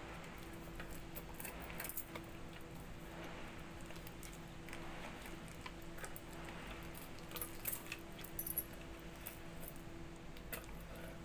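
Banana eating: soft chewing and the peel being pulled back, with glass bangles on the wrists clinking and jangling now and then, busiest about two-thirds of the way through. A faint steady hum runs underneath.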